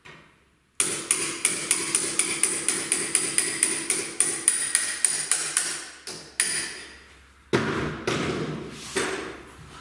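Socket ratchet clicking in a fast, even run of about four sharp metallic clicks a second as it works at the front fork's axle of an X9 E-Chopper, stopping after about five seconds. Two louder knocks with a rustle follow near the end.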